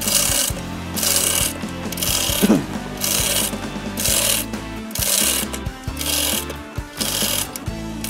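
Hand chain hoist being pulled in regular strokes, about one a second, each stroke a half-second rattle of chain running through the block and ratchet as a snowmobile is lifted off the ground.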